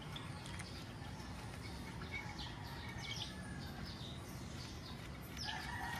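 Small birds chirping in short, quick downward notes over a steady low background noise. Near the end a rooster begins to crow.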